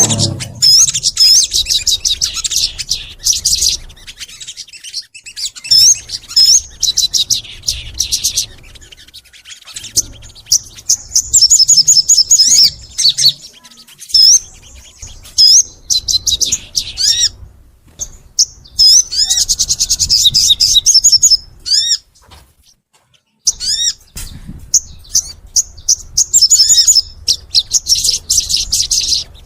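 Sogon songbird singing continuously in energetic, high-pitched phrases of rapid trilled twitters a few seconds long, interspersed with short hooked whistled notes. The song breaks off briefly about three quarters of the way through, then resumes.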